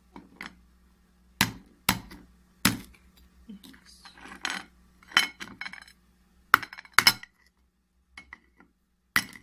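Steel spoon clinking against a ceramic plate as brittle, hollow honeycomb sugar candy is cracked and broken into pieces. It comes as a string of sharp, unevenly spaced clinks and snaps, with softer scraping between them.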